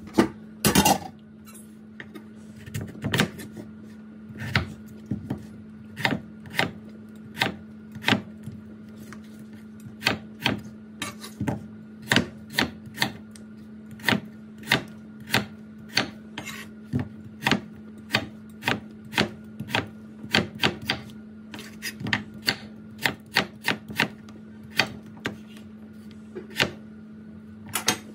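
Chef's knife chopping and slicing Korean radish on a wooden cutting board: sharp knocks of the blade through the radish onto the board, about one or two a second, over a faint steady hum. A louder clatter comes about a second in.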